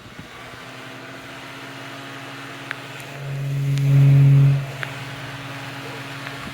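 Holmes Blizzard box fan's shaded-pole motor running on low, with a steady electrical hum that swells much louder for about a second and a half midway and then settles back. A few light clicks are heard. The owner says the fan is a little screwed up and its motor still needs cleaning and oiling.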